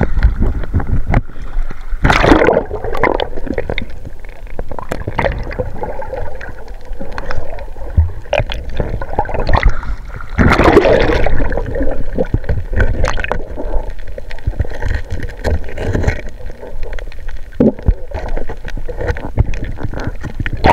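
Water sloshing and gurgling, with many small clicks and knocks and two louder rushing surges, about two seconds in and about ten seconds in.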